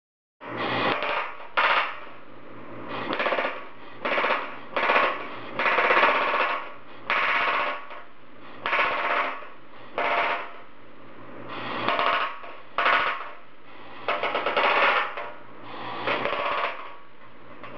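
Pneumatic air hammer with a plastic die rattling against stainless steel sheet in a string of short bursts, each about half a second to a second long, with a low steady hum between them.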